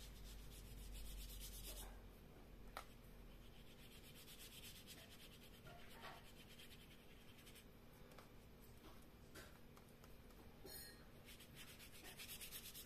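Faint scratchy rubbing of a water brush's bristles scrubbing watercolour onto card in short back-and-forth strokes.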